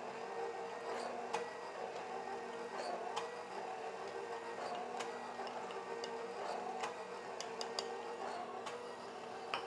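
KitchenAid stand mixer running its sifter attachment: a steady motor hum. Irregular light clicks and taps of a spoon on a bowl sound over it as dry ingredients are spooned into the hopper, with a quick cluster near the end.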